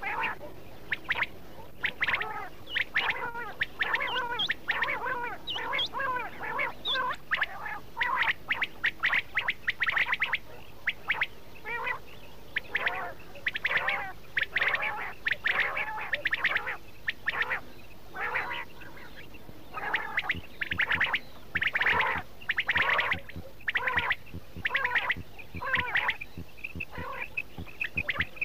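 Quail calling over and over: short, sharp call notes repeated quickly in clusters with brief pauses. This is a recorded quail call of the kind played to lure quail for hunting.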